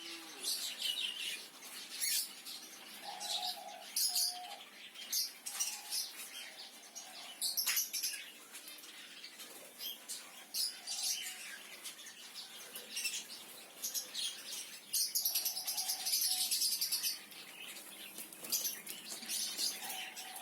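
Caged zebra finches calling: many short, high chirps overlapping throughout, with a few longer calls.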